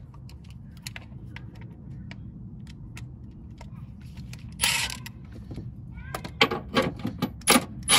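Cordless impact wrench on the 18 mm engine-mount nuts: a half-second burst about halfway through, then a run of short, quick bursts in the last two seconds. A steady low hum underneath.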